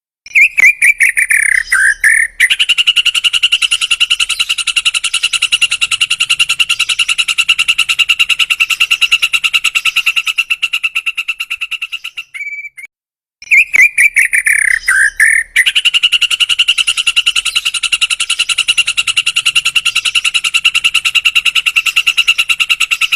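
White-rumped shama (murai batu) calling 'full dor': a long, rapid rattling trill of evenly repeated notes, each bout opened by a few short falling whistles. It breaks off briefly about halfway and starts again.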